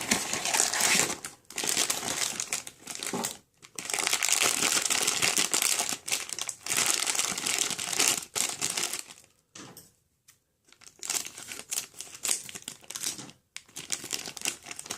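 Crinkly wrapper of a blind-box toy figure being handled and torn open, in irregular bursts of crackling with short pauses.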